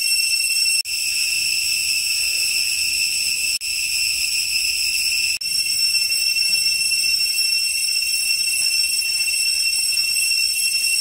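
A chorus of insects droning steadily at a high pitch, broken off for an instant a few times.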